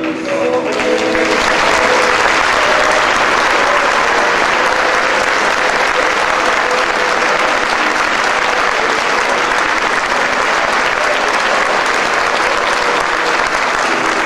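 An audience applauding, a dense steady clapping that builds over the first couple of seconds and then holds.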